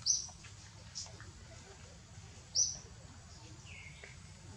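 Two short high-pitched animal calls, about two and a half seconds apart, with fainter chirps between them over a low steady rumble.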